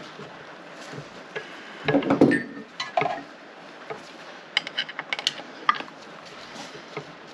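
Metal parts and hand tools clinking and clicking as a motorcycle engine's cams and timing chain are worked on: scattered sharp taps, a louder clatter about two seconds in, and a quick run of clicks around five seconds in.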